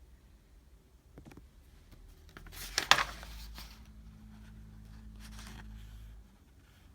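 Low electric hum that strengthens about two and a half seconds in and drops away near the end, with a brief loud scraping crackle about three seconds in.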